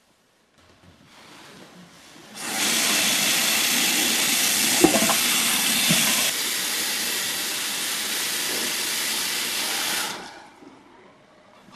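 Bathroom sink faucet running, a stream of water pouring into the basin. It comes on full about two seconds in, drops a little past the middle, and shuts off near the end.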